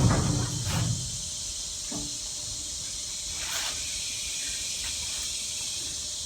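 The low rumble of a heavy rolling tool chest being moved dies away about a second in, leaving a steady high hiss with a few light knocks.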